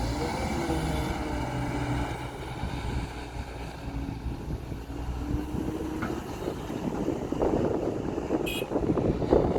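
Heavy diesel earthmoving machinery running, its engine note wavering. From about seven seconds a rougher grinding, crackling noise builds, with a short high squeal near the end.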